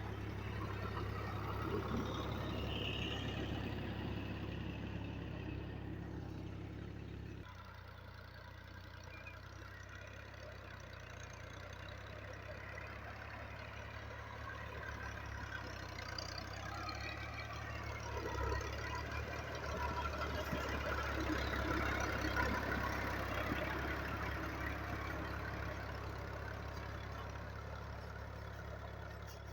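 Al-Ghazi 640 tractor's diesel engine running steadily while it pulls a cultivator through the field. The sound drops suddenly about a quarter of the way in, grows louder again past the middle, then slowly fades as the tractor moves away.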